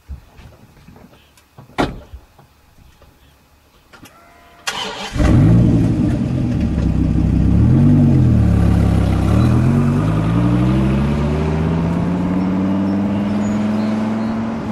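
Dodge Viper's V10 engine cranking and firing up about five seconds in, after a couple of short clicks. It is blipped once, then the note climbs steadily as the car pulls away.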